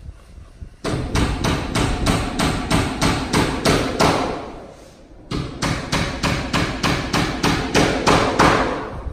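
Rapid, steady hammering, about five blows a second, in two long runs with a short break about halfway through.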